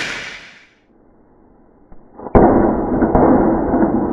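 The tail of a sharp thunderclap fading out over the first second. After a short lull, a loud rumble of thunder starts suddenly about two seconds in and goes on, with a faint click partway through.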